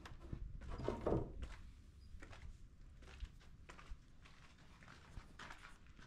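Faint scattered knocks and scuffs of footsteps on a building site's floor, the loudest about a second in, over a low background rumble.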